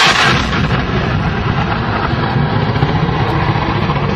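Military helicopter's engine and rotors running steadily, with a burst of gunfire ending just after the start.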